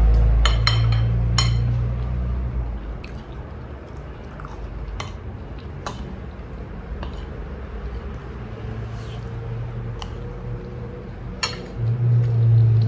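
Eating fried rice: a spoon clicks and clinks against a plate now and then, with chewing. A low rumble runs under the first two seconds and comes back briefly near the end.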